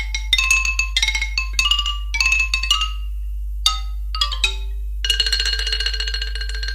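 Instrumental passage of a Thai luk thung song: a melody of short struck notes that ring and fade, then from about five seconds in one long held note, over a steady low hum.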